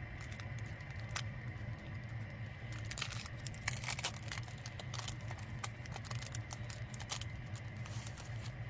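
Paper and plastic packaging being handled and unwrapped: irregular crinkling, tearing and light clicks, busiest about three to four seconds in and again near seven seconds, over a steady low hum.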